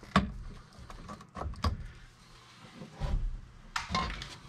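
Lineman's pliers snipping through 12/2 Romex electrical cable: a sharp snap about a quarter second in, a second click about a second later, then softer handling knocks.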